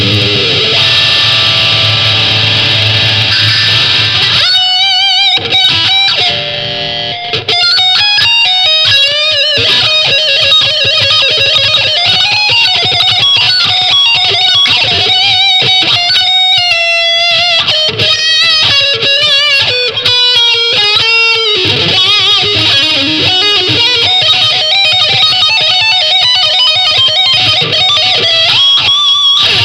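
Electric guitar played through a small Marshall combo amp and picked up by a condenser microphone in front of the amp. A long ringing chord comes first, then about four seconds in the playing turns to fast single-note lead lines with bends and vibrato.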